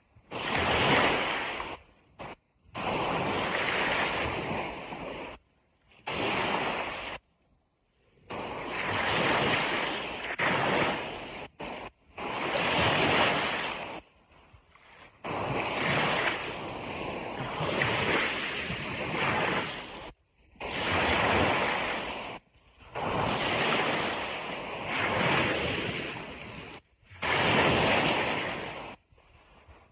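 Waves breaking on a beach, one swell of surf after another every two to three seconds. The sound cuts out abruptly to near silence several times between swells.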